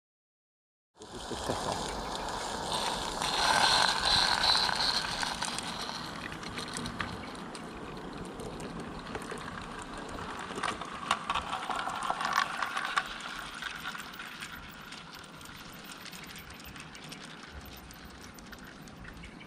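16 mm scale live-steam model locomotive (the double Fairlie James Spooner) running past with a mixed train; loudest with a hiss about two to five seconds in. Then the coaches and slate wagons click over the rail joints, fading as the train runs away along the line.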